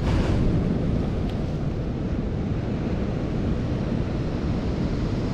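Sea surf washing on a beach, mixed with wind buffeting the microphone, a steady low rumbling noise that swells briefly at the start.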